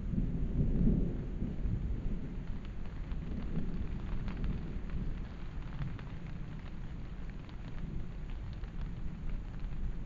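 Steady rain falling, with scattered individual drops ticking, over a low rumble that is loudest about a second in.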